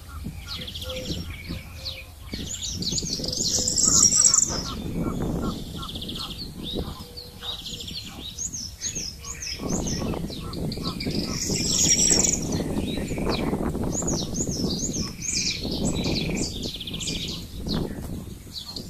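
Songbirds chirping and singing, with loud runs of quick rising notes about 3 to 4 seconds in and again about 11 to 12 seconds in, over a low rushing noise.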